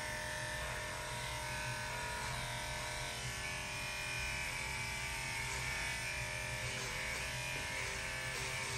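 Electric dog-grooming clipper running steadily as it shaves a Shih Tzu's coat.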